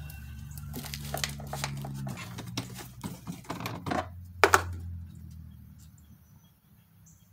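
Electric starter cranking a Husqvarna YHT22V46 lawn tractor's V-twin engine with its spark plugs out, a steady low whir that stops about two seconds in; the cranking drives the fuel pump to purge old gasoline that may hold water. Then clicks and knocks of hands working on the engine, the loudest about four and a half seconds in.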